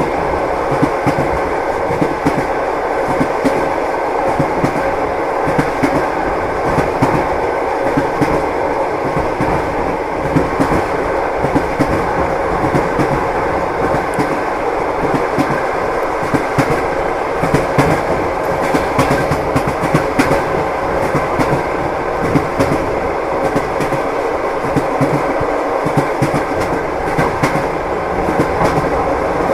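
Railway wheels clattering on rail joints as a train rolls steadily along, a continuous rumble with frequent knocks.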